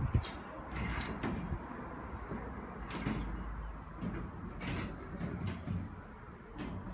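Foosball table rods being slid and spun through their bearings, giving several irregular rattling swishes with sharp knocks of the figures striking the ball, over a steady low rumble.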